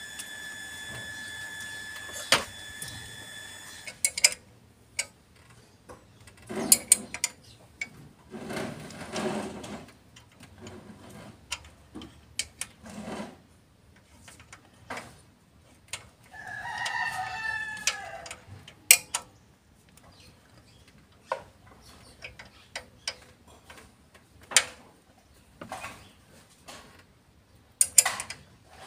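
Sharp metal clinks and ticks of a combination wrench on bolts of an open cylinder head, in irregular bursts. A rooster crows once for about two seconds just past the middle. A steady high-pitched whine sounds for the first four seconds, then stops.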